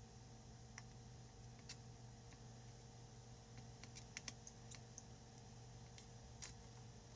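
Faint, irregular small clicks and taps of hand tools at a circuit board while a BIOS chip is hand-soldered, with a short flurry of clicks about four seconds in, over a steady low hum.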